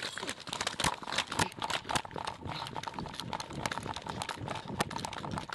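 Quick, uneven footfalls of a person running in boots across concrete and gravel, with a dense clatter of carried gear at each stride.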